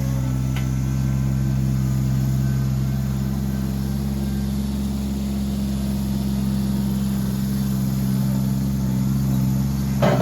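Engine running at a steady idle, one unchanging low hum, with a short knock near the end.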